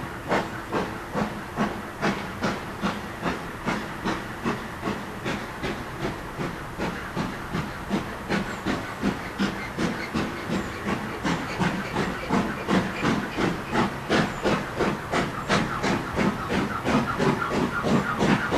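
LMS Black Five steam locomotive exhausting in a steady rhythm of chuffs, about two a second, over a hiss of steam as it works a train. The beats grow louder as it approaches.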